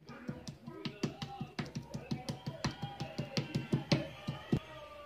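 Raw chicken breast being pounded with a knife handle on a wooden cutting board, used instead of a meat mallet to tenderise it. It comes as a quick, even run of knocks, about five a second, ending with a harder blow a little before the end. Background music plays underneath.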